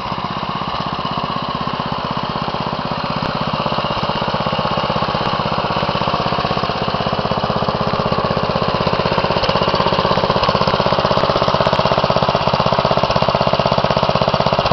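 Wheel Horse 211-3 garden tractor's 11 hp single-cylinder Briggs & Stratton petrol engine running steadily with a fast, even chug, growing gradually louder.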